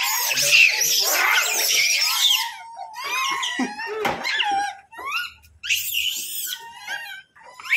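A troop of rhesus macaques screaming and squealing, many high calls overlapping at first, then thinning to scattered single shrieks with short pauses.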